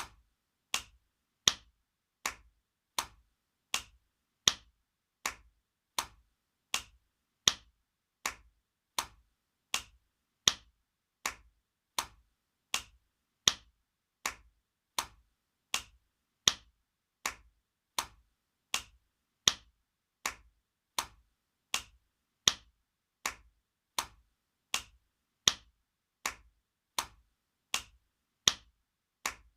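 Spanking sound effect: a hand slapping skin in a steady, even rhythm, about one sharp slap every three-quarters of a second, some louder than others.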